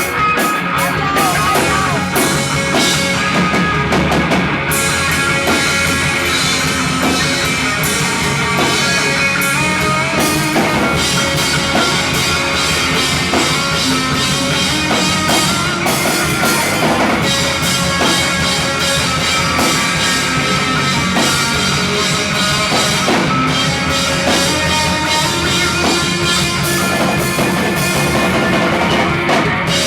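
Pop punk band playing live: guitars and a drum kit at a steady, full level.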